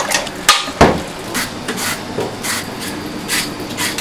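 A daikon radish being grated on a plastic grater over a metal bowl, in short rasping strokes about two or three a second. Two sharp knocks come about half a second and a second in.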